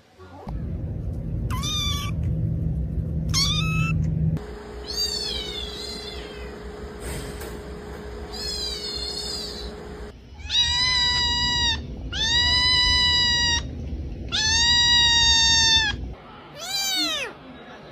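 A domestic cat meowing repeatedly, about eight drawn-out meows whose pitch rises and falls. The loudest three come in the second half and are each held for more than a second. A low rumbling noise runs underneath until near the end.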